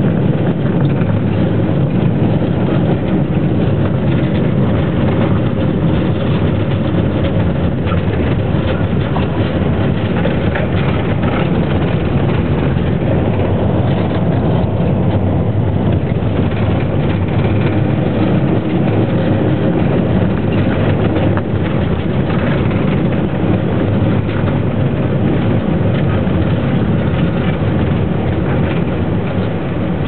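Steady engine and road noise heard from inside a moving vehicle: a loud, even, low rumble that never lets up.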